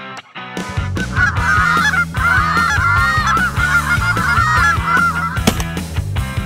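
Rapid honks and clucks of a Canada goose call blown by hand, overlapping and fast, over rock music with a steady beat; a sharp crack sounds about five and a half seconds in.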